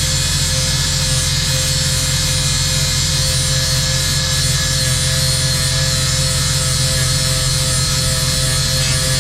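Angle grinder with a flap wheel grinding the steel edge of a rotary brush-cutter blade, a steady whine with an even grinding hiss.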